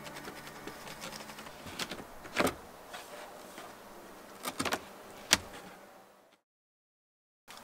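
A few scattered light knocks and clicks: one at about two and a half seconds, three quick ones a little past the middle and a sharp one just after. They come from a wooden flat board and a hook-and-loop-faced block being handled on a car's rear cargo floor. Faint background music fades out at the start, and the sound cuts to silence near the end.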